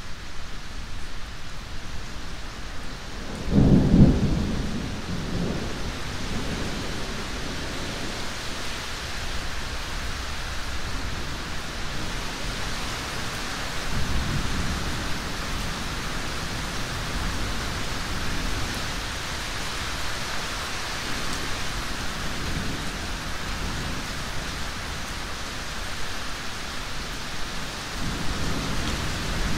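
Steady rain with a loud clap of thunder about three and a half seconds in. Fainter low rumbles of thunder follow around the middle and near the end.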